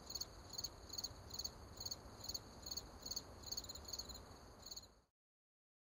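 Crickets chirping, about two or three chirps a second, over a faint low hum. The sound cuts off suddenly about five seconds in.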